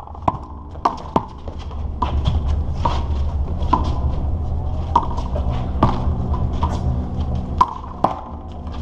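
A handball rally: a small rubber ball slapped by bare hands and smacking the concrete wall and court, about a dozen sharp cracks at irregular intervals over a steady low rumble.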